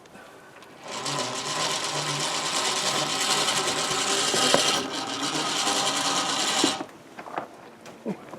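Electric ATV winch running for about six seconds, its motor and gear train whirring steadily as the old winch cable is spooled off the drum. It starts and stops abruptly, with a brief pause about two-thirds of the way through.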